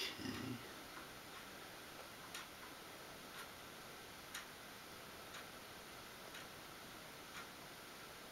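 A clock ticking faintly and evenly, about once a second, in a quiet room, with a brief soft low sound right at the start.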